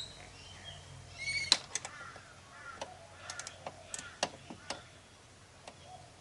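Birds calling faintly in the background, with a scattering of short, sharp clicks at uneven intervals.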